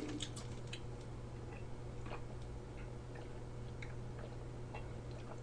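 A person drinking from a plastic bottle: faint, irregular small clicks and gulps over a low steady hum.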